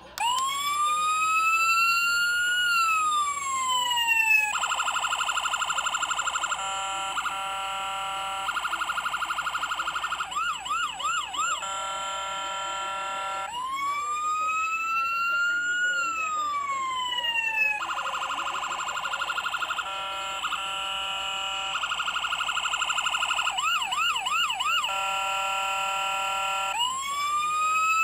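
Electronic siren of a 1/18-scale model Ford Crown Victoria police car, switched on by hand. It starts with a wail that rises and then falls, goes into fast pulsing tones with a rapid warble in the middle, and then plays the same sequence through a second time.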